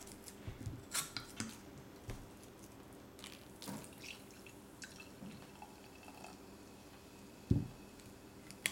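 Sparkling cider poured from a glass bottle into a wine glass, with liquid splashing and dripping and scattered light clicks of glass. There is a single low thump near the end.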